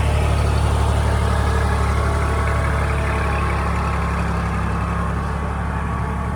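Small tractor's engine running steadily at a low, even speed.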